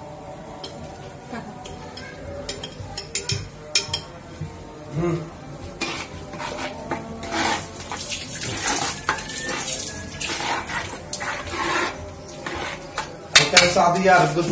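Spoon stirring and scraping in a large metal pot of chicken in thick sauce: a few sharp clicks at first, then steady clinking and scraping against the pot's side, loudest near the end.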